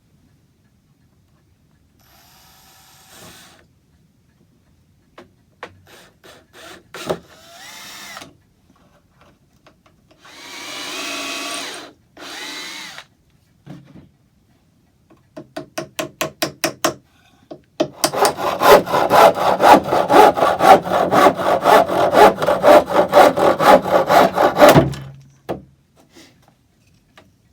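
Hand woodworking on the clock case: scattered knocks and short scrapes, then a loud run of fast back-and-forth strokes, about five a second, lasting some seven seconds.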